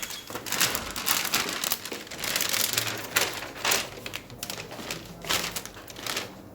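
Handling noise: irregular rustling and crinkling with scattered clicks and taps, as of hands moving and handling objects on a work surface.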